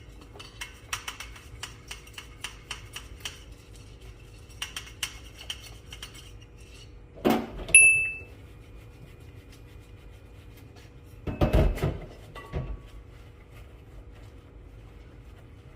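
Dishes and cutlery clinking and clattering, with two heavier clunks and a short high electronic beep about eight seconds in.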